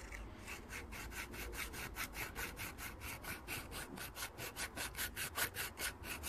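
Small hand file rasping back and forth in the tang hole of a steel knife guard clamped in a vise, enlarging the hole. It makes quick even strokes at about five a second, getting louder toward the end.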